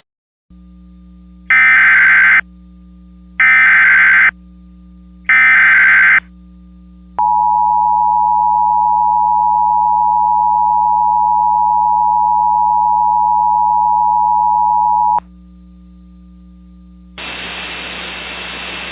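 Emergency Alert System SAME header: three harsh digital data bursts, each about a second long, then a steady attention tone held for about eight seconds. Near the end a hiss like radio static comes in, with a low hum beneath throughout.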